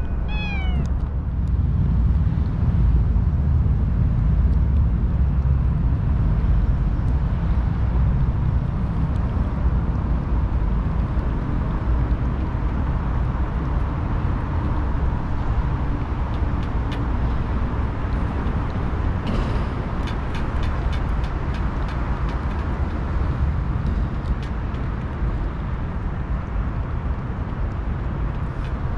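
A steady low rumble of city traffic, with a tabby cat meowing once right at the start. The cat then licks churu paste from a steel dish, heard as faint clicks that cluster about two-thirds of the way through.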